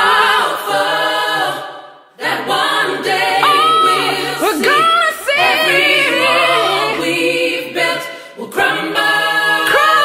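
Music: layered a cappella vocal harmonies with no beat, fading out briefly about two seconds in and again near the eight-second mark.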